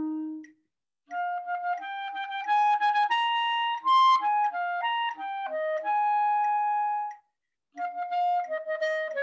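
Clarinet playing a moderate-tempo passage of short notes in its upper register. The notes climb to a loud high note about four seconds in, then step back down. The line breaks off for two short rests, about half a second in and near seven seconds.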